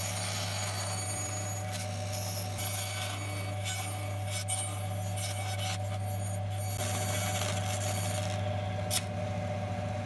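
Bandsaw running with a steady hum while its blade slowly cuts thin grooves into a small wooden block, with light scraping and ticking from the cut. Near the end comes one sharp crack as the thin wood catches on the blade and breaks.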